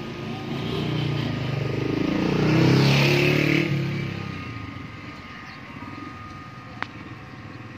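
A motor vehicle passing close by, its engine growing louder to a peak about three seconds in and then fading as it moves away. A single sharp click comes near the end.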